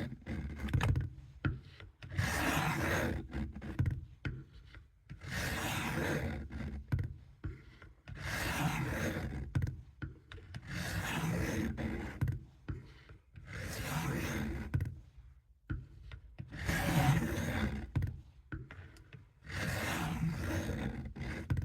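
Steel knife blade being drawn in long, even strokes across a coarse sharpening stone: about eight scraping passes, one every two and a half to three seconds, with lighter scuffs between.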